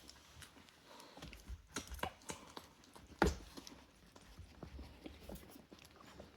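Three-week-old Rottweiler puppies shuffling and scrabbling about, with scattered small taps and knocks and one louder knock about three seconds in.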